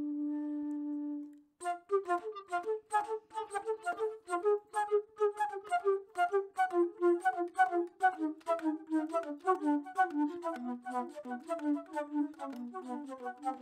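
Flute music: a single low note held, stopping about a second in, then after a brief pause a fast run of short, detached notes, about five a second, each with a sharp attack, the line drifting lower toward the end.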